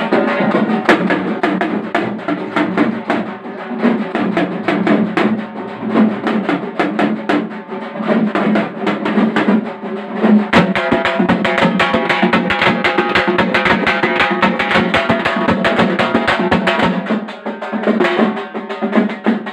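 A drum band playing live festival music: fast, dense drumming with drum rolls. A deep drum beats steadily from about ten seconds in until shortly before the end, with a steady pitched line sounding above the drums.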